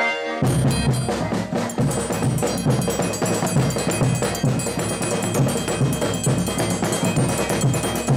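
Folia band drums beaten with sticks in a fast, driving rhythm, starting about half a second in, with steady ringing tones held above the beat.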